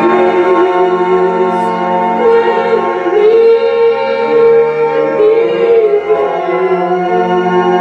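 Music with held keyboard chords under a singing voice that comes in a couple of seconds in and wavers for a few seconds.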